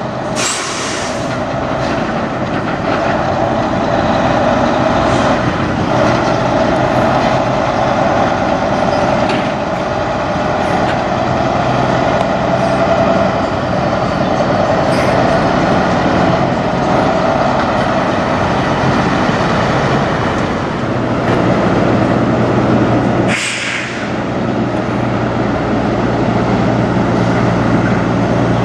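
Diesel semi-truck engines running as tractor-trailers pull slowly away at low speed, with a short hiss of air near the start and another about three-quarters of the way through, where a second truck's deeper engine tone takes over.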